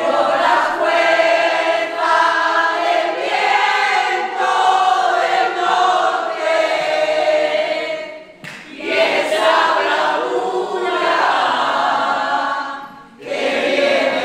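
A large mixed group of adults singing together, held notes and phrases in chorus, with two brief breaks between phrases about 8 and 13 seconds in.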